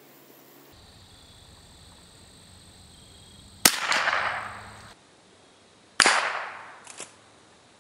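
Browning Buck Mark Sporter .22 LR rifle firing CCI 40-grain standard-velocity rounds: two sharp shots about two seconds apart, each with a tail that fades over about a second.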